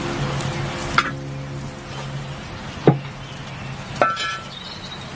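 A metal cooking pan being set onto a wire grill ring over a campfire: three clinks of metal on metal, about a second in, just before three seconds and at four seconds, the last one ringing briefly.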